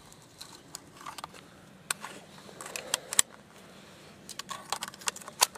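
Small mechanical clicks and clacks of a Lakefield Mossberg Mark 3 .22LR rifle as its box magazine is pulled out to clear a jam, with a quicker run of clicks near the end.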